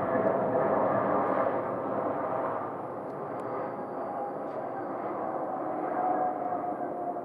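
Jet noise from an Airbus A220 airliner's geared turbofan engines, a steady rush with a humming tone, fading over the first few seconds and then holding.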